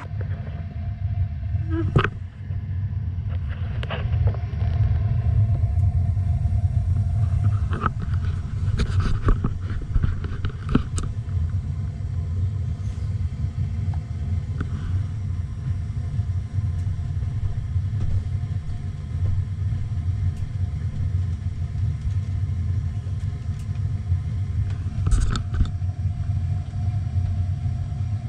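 Gas burner of an A.O. Smith water heater running after being relit, a steady low rumble, with a few sharp knocks and clicks scattered through it.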